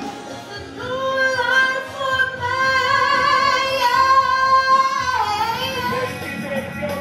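A woman belting a long held note with vibrato over the show's musical accompaniment, from about a second in until about five seconds, ending in a downward slide. Near the end the music changes to a different, more upbeat number.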